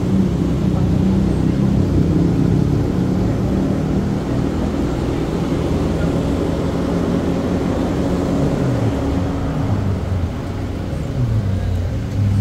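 Street traffic noise, with a motor vehicle engine running close by. Its pitch slides down and up a few times near the end.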